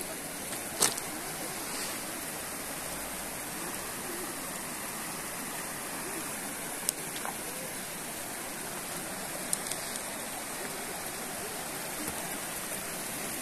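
Shallow mountain river rushing steadily over a bed of stones, with a few short sharp knocks standing out above it.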